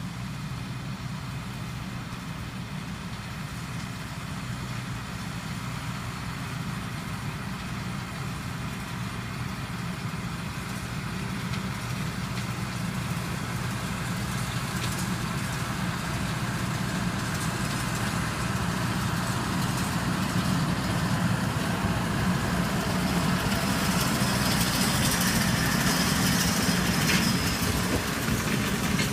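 Farm tractor engine running steadily while pulling a round hay baler, growing louder as it comes closer. Near the end a higher rattle and a few sharp clicks join in.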